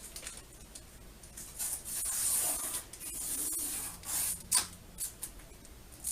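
A stuck energy-guide label being worked free from a new TV: hissy rustling and scraping for about two seconds, then a few sharp clicks and crinkles.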